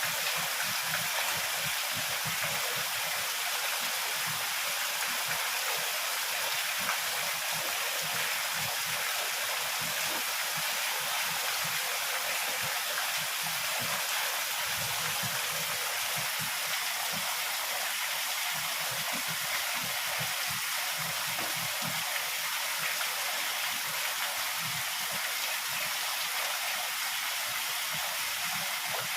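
Heavy rain falling in a steady downpour, an even hiss of water with no breaks.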